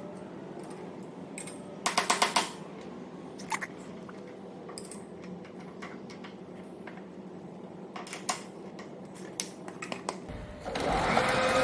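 Machine tool table power traverse: a low steady hum with scattered clicks and a quick rattle of clicks about two seconds in, then near the end the drive starts with a louder steady whine as the table moves across.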